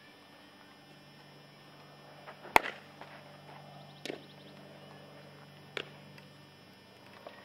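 Baseball ground-ball practice: a sharp crack of a bat hitting a ball about two and a half seconds in, the loudest sound, then sharp pops of the ball smacking into a leather glove about every second and a half.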